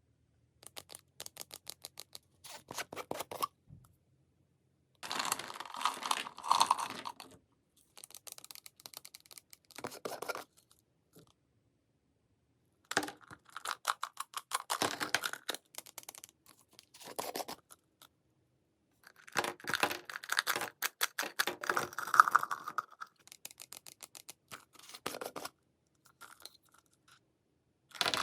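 Close-up eating sounds of sugar-coated Italian fruit jellies: dense crackly clicking in bursts of one to three seconds, separated by short silent pauses.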